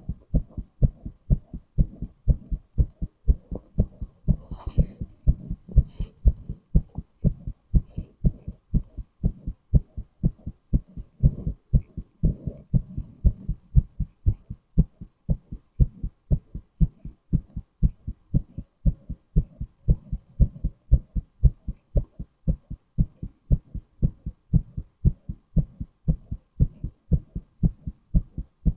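A man's heartbeat recorded close up: a steady, regular lub-dub of low thuds in pairs.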